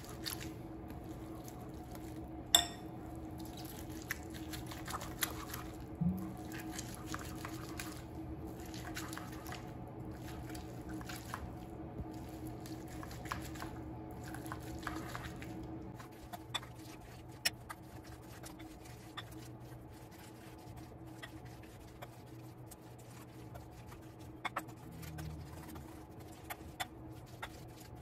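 Metal potato masher pressing soft, fully cooked baby carrots and butter in a glass bowl: irregular wet squishing with scattered sharp clicks as the masher knocks the glass, the loudest about two and a half seconds in.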